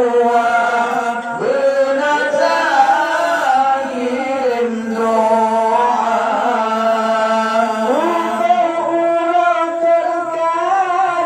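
A man singing an Acehnese qasidah, an Islamic devotional song, into a handheld microphone, with long held notes that slide and ornament between pitches.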